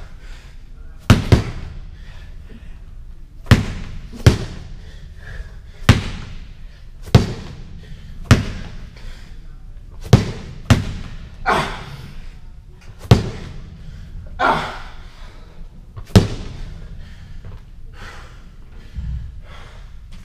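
Medicine ball slammed hard onto a rubber gym floor about ten times, one slam every second or two, several with a quick bounce right after. The slams stop about four seconds before the end.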